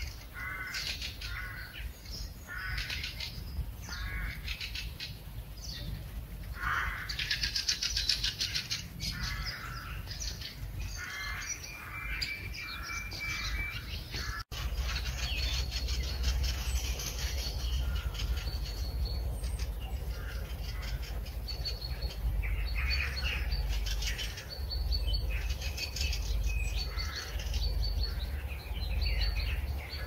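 Several wild songbirds singing and calling together: short chirps, fast trills and runs of repeated high notes, over a steady low rumble.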